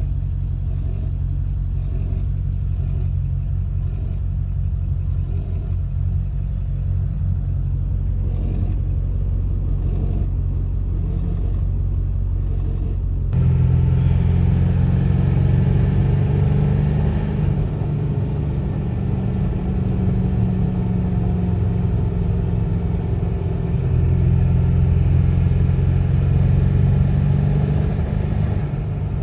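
7.3 L Powerstroke turbo-diesel V8 truck running under way. About halfway through it gets louder under throttle, with a high turbo whistle that rises, falls away and rises again near the end. This is the new noise the owner thinks sounds like an exhaust leak, which traces to leaking up-pipes and collector at the turbo.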